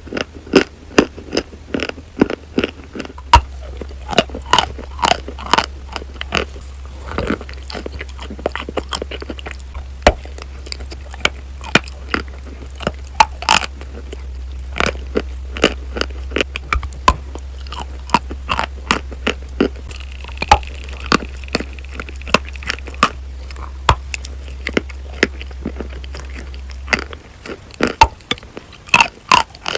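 Close-miked biting and chewing of chalk coated in paste: sharp, irregular crunches, often several a second. A steady low hum runs underneath and stops near the end.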